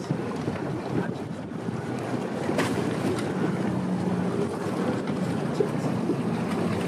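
Wind buffeting the microphone and water rushing past an AC40 foiling yacht sailing at speed, with a faint steady low hum that comes in about halfway and returns near the end.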